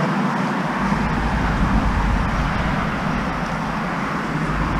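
Steady road and engine noise of a car driving slowly, heard from inside the cabin, with a low rumble that comes up about a second in.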